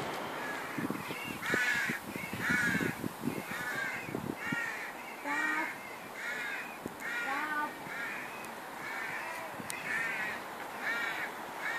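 A crow cawing over and over, harsh calls about once a second.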